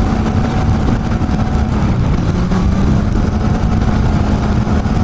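Suzuki GSR400M motorcycle's inline-four engine running at a steady highway cruising speed, its pitch holding level throughout.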